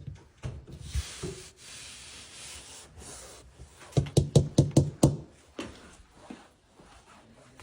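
Knocking on a wall: a few single knocks, then a quick run of about eight sharp knocks about four seconds in.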